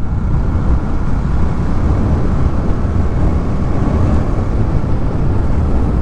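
Motorcycle cruising at a steady speed: the engine runs evenly under a steady rush of wind noise, with no gear changes or revving.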